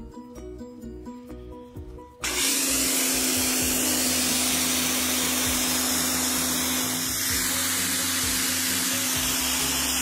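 Music with plucked notes, then about two seconds in the Greenworks GPW2000 electric pressure washer comes in suddenly and loudly: its motor and pump run with a steady hum while the water jet hisses on concrete.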